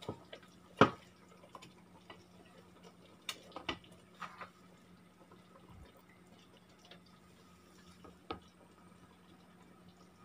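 Drops of hot ginger brown-sugar syrup falling into a glass bowl of cold water: a few separate small plops and clicks, the loudest about a second in. It is the cold-water test that shows whether the boiled syrup is cooked.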